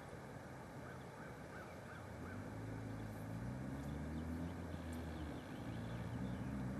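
A low droning hum sets in about two seconds in and grows louder, over a faint steady outdoor background; a few faint high chirps sound in the first two seconds.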